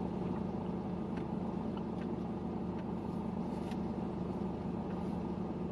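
Steady low hum of a 2016 Mercedes C-Class running, heard from inside the cabin, with a few faint ticks of a fingertip on the dashboard touchscreen.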